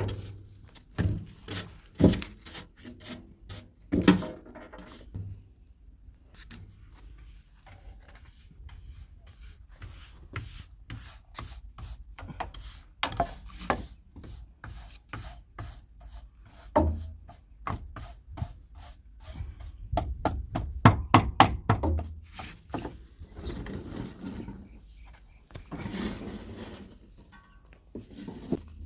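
A Daewoo 170W-3 wheeled excavator at work: a run of irregular knocks and scraping over a faint low rumble, with a dense cluster of sharp knocks about twenty seconds in.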